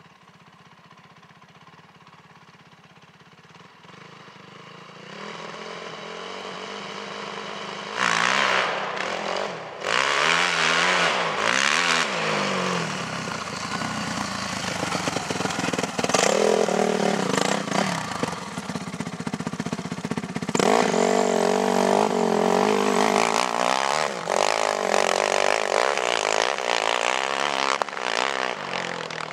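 Honda CRF four-stroke motocross bike pulling away from a practice start: quiet at first, the engine comes up over the first several seconds, then revs hard from about eight seconds in, its pitch rising and falling again and again through the gears and throttle changes as it rides the track.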